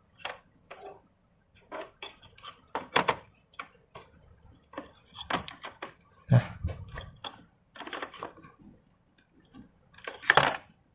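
Irregular small clicks and taps of hard plastic and metal parts being handled: a SATA SSD in its bracket being fitted and plugged into a laptop's drive connector.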